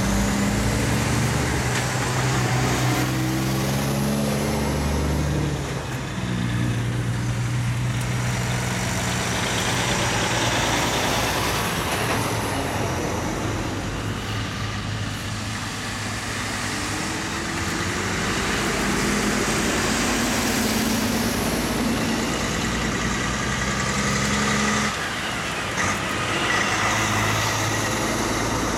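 Heavy diesel trucks in a convoy driving past one after another, among them a Freightliner cab-over, a MAN and a Mercedes-Benz Actros: engine drone and tyre noise that swell and ease as each truck passes, with one engine note rising partway through.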